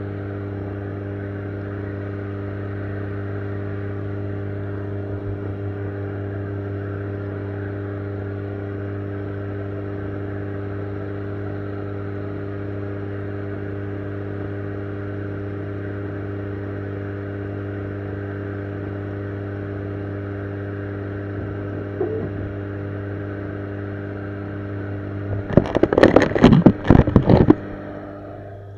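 Steady low hum of aquarium equipment with the hiss of an airstone's bubble stream, heard through an underwater camera in the tank. About three-quarters of the way in, a cluster of loud knocks and scrapes as the camera is handled and moved.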